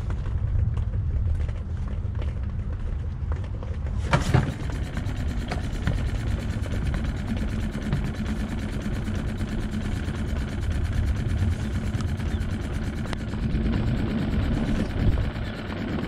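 Small Suzuki outboard motor running steadily, over a low rumble of wind on the microphone. A sharp knock comes about four seconds in, after which the engine hum sounds fuller.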